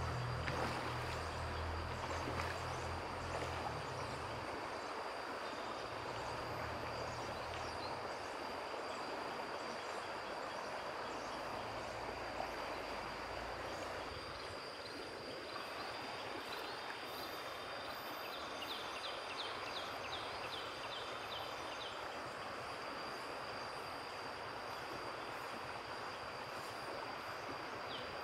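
Stream water running steadily, with a thin, steady high-pitched tone over it.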